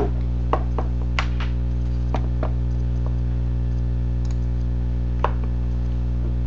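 Steady electrical hum made of several even tones, with a scatter of sharp clicks and knocks in the first two and a half seconds and one more a little past five seconds, from the webcam and laptop being handled.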